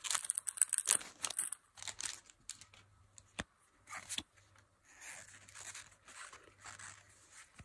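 Foil wrapper of a Pokémon Fusion Strike booster pack being torn open, with dense sharp crackling for about the first second and a half. Then the cards are slid out and handled, with soft sliding and light clicks.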